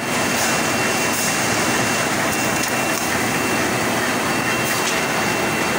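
5-ply automatic pasting machine running: a steady mechanical rumble and clatter of rollers and feed gear, with a thin steady high whine over it.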